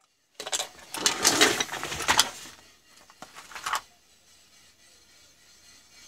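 Small loose electronic components, capacitors and the like, rattling and clicking as they are rummaged through in a box. The clatter is densest from about half a second to two and a half seconds in, with a few more clicks just before four seconds.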